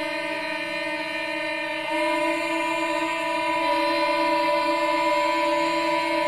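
Sustained drone of several steady pitched tones held together like a horn chord, part of an experimental noise composition. About two seconds in, a higher tone swells in with a short upward slide and the whole sound gets louder.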